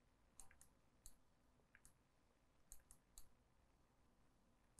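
Near silence broken by several faint, sharp computer mouse clicks at irregular intervals, most of them in the first three seconds or so.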